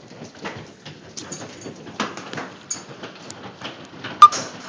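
Hailstones striking a trampoline and the ground in irregular sharp ticks and thuds, with one much louder hit about four seconds in that rings briefly.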